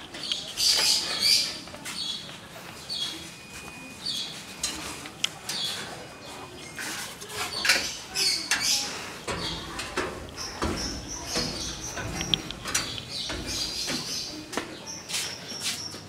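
Footsteps climbing a stairway, with scattered sharp knocks and taps, mixed with short high-pitched chirps and squeaks that come and go.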